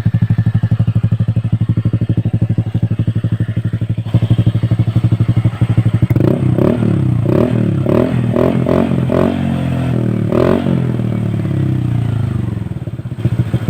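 Honda Click 125i scooter's single-cylinder engine through an Akrapovic exhaust, idling with a steady pulse, then blipped quickly about a dozen times from about six seconds in, with a last rev a little later, before settling back to idle.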